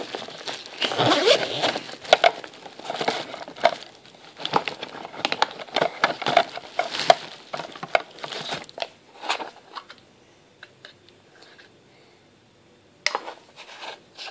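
Hands rummaging through a handbag, its contents rustling and crinkling with small clicks and knocks, thinning out after about nine seconds; a brief clatter near the end.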